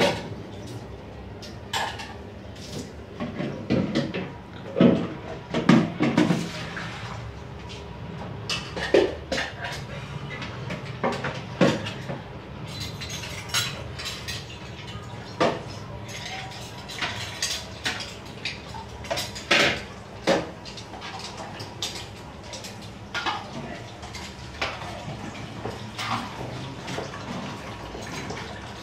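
Large metal cooking pots and utensils clattering and knocking irregularly as they are handled on a gas stove, with a louder run of knocks about four to six seconds in.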